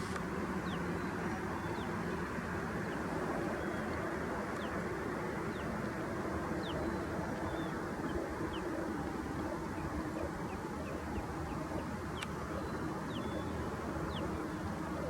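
A colony of cormorants making a dense, continuous low croaking din, with short high chirps from birds scattered through it.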